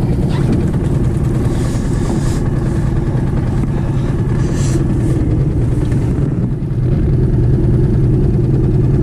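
Outboard motor running steadily as it pushes a small aluminium boat at trolling speed, with a slight dip in level about six and a half seconds in.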